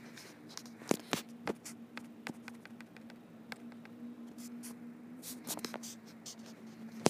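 Scattered sharp clicks and knocks at irregular intervals, a few louder ones about a second in, over a steady low hum in a hard-walled indoor space.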